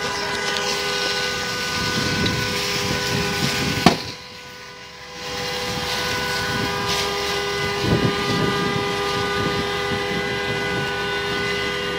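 Engine-driven fire pump running steadily with a constant high whine and drone while feeding the firefighting hoses. There is a sharp click about four seconds in, then the sound drops away for about a second before returning.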